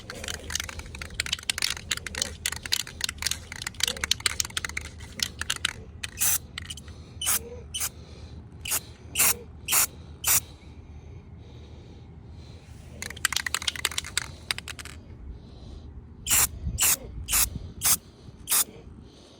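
Aerosol spray paint can: a stretch of fast rattling as the can is shaken, then several short bursts of spray. The shaking and spraying happen twice, most likely touch-up paint going onto curb-rashed wheel rims.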